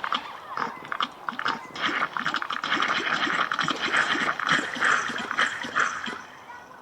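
Animal-like noises over a dense run of rapid clicks, easing off near the end.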